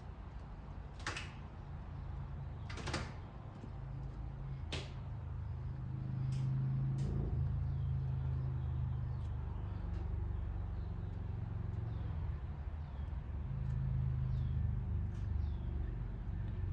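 Three short scrapes or clinks of metal tools and parts being handled on an engine block, about two seconds apart, over a steady low rumble, with faint bird chirps toward the end.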